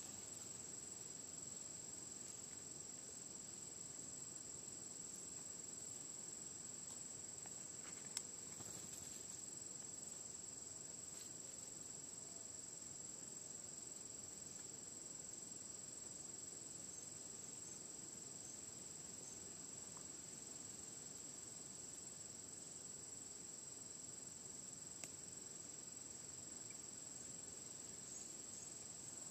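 An insect trilling steadily at a high pitch, with a single sharp click about eight seconds in.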